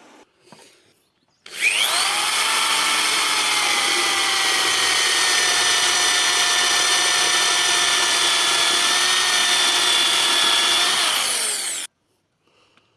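Electric drill motor spinning up about a second and a half in, running steadily with a whining pitch for about ten seconds, then cutting off abruptly.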